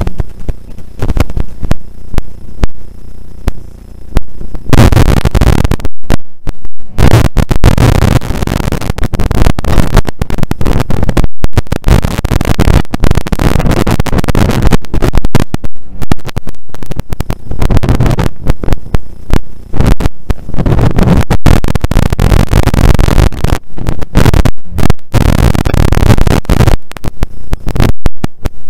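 Rally car driven flat out on a snowy stage, heard from inside the cabin: a low rumble at first, then about five seconds in the engine and road noise turn into loud, harsh distorted noise with brief dropouts, as the microphone overloads.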